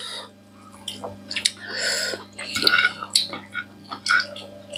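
Several people eating a meal with their hands: wet chewing and mouth smacks with scattered clicks against plates and bowls, over a faint steady hum.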